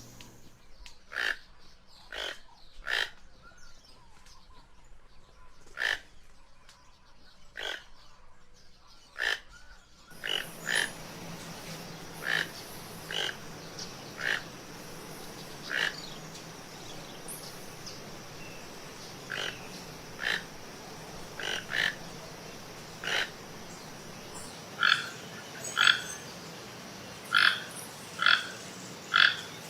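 Toucan giving short calls, one about every second, at times in quick pairs near the end. A steady background hiss comes in abruptly about a third of the way through.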